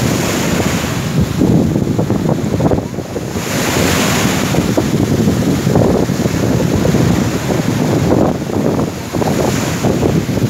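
Wind buffeting the microphone over the wash of surf breaking on the shore, with a louder rush of breaking surf about four seconds in.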